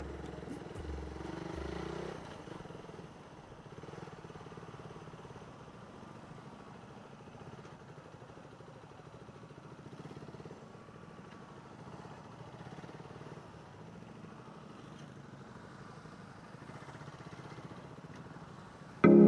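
Motorcycle engine running at low speed as the bike rolls slowly, a low even drone with a fine rapid pulse. Background music fades out in the first two seconds, and a new music track starts suddenly just before the end.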